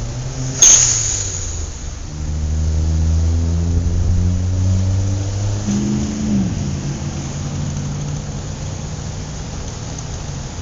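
City street traffic: a sudden sharp hiss about half a second in, then a vehicle engine running with a steady low hum whose pitch drops a little past the middle before it settles again.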